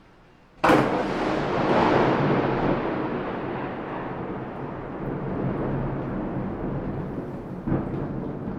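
A thunderclap cracks sharply about half a second in and rolls on as a long rumble that slowly fades. A second sharp crack comes near the end.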